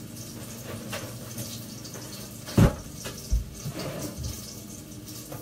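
Jalapeño peppers frying in extra virgin olive oil in a pan, a steady sizzle and hiss. A few knocks and thumps from handling things in the kitchen break in, the loudest about two and a half seconds in.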